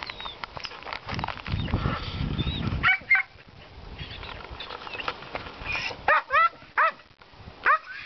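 A dog barking in short yaps: a pair about three seconds in, then four more close together near the end. Small birds chirp faintly between the barks.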